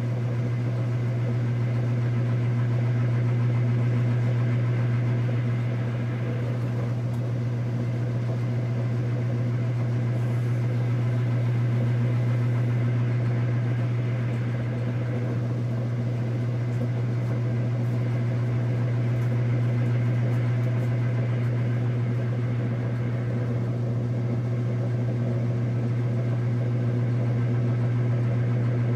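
KitchenAid Superba KAWS850LT1 top-load washing machine spinning its basket: a steady low motor hum that swells gently in loudness about every eight seconds.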